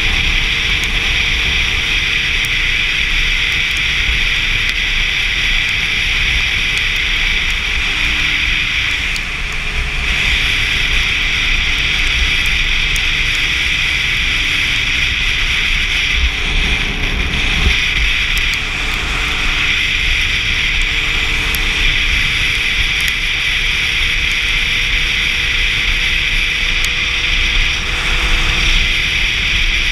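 Inline-four sport bike engine running at a steady cruise, heard from the rider's seat under a constant rush of wind over the microphone.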